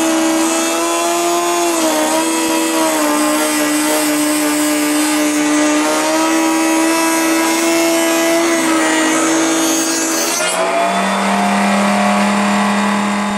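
Table-mounted router running at high speed with a steady, high whine, its pitch dipping slightly as a wooden rail is fed past the bearing-guided bit. About three-quarters of the way through the tone changes and drops lower.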